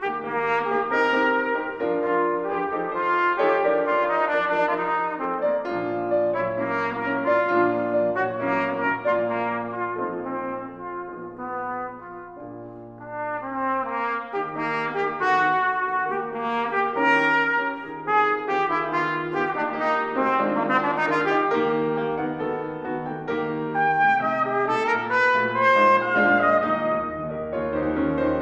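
Cornet playing a melody over grand piano accompaniment. About twelve seconds in, the music drops to a quieter stretch for a couple of seconds before the cornet comes back in.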